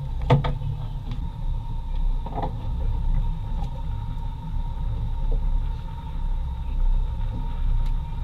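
Wind buffeting the microphone of a camera mounted on a small boat's canopy frame, a steady, uneven low rumble, with a sharp knock about a third of a second in.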